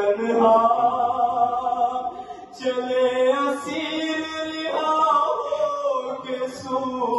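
A man chanting an Urdu noha (a lament) unaccompanied, holding long drawn-out notes, with a short breath about two and a half seconds in.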